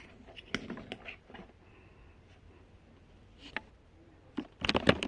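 Scattered light clicks and taps from small objects being handled, with a quick flurry of clicks near the end.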